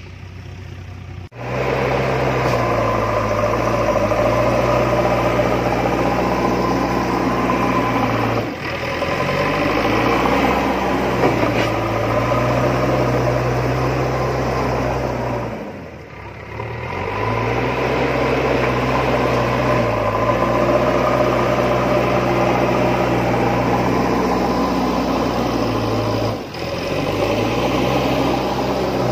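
Engine running steadily with a low drone, breaking off briefly and starting again three times.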